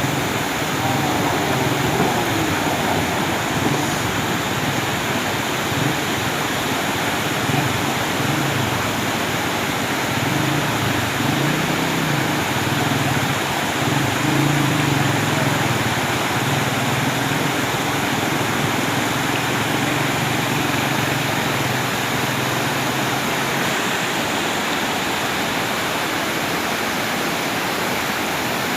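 Waterfall rushing in a steady, loud roar of falling water. A low hum runs underneath and stops about five seconds before the end.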